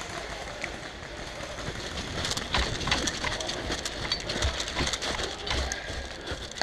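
Running footsteps crunching and rustling through dry fallen leaves, with irregular thuds and clicks, louder from about two seconds in.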